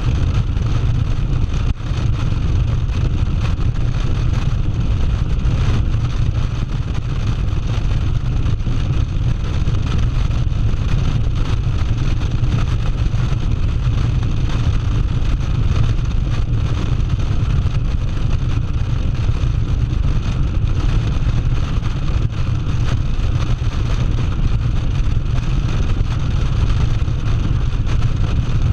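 Cruiser motorcycle running steadily at highway speed, its low engine note mixed with wind noise on the microphone.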